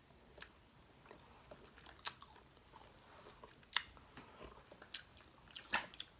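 Faint eating sounds: boiled crawfish and shrimp shells cracking and being bitten, with chewing, heard as scattered short sharp clicks, a handful over several seconds.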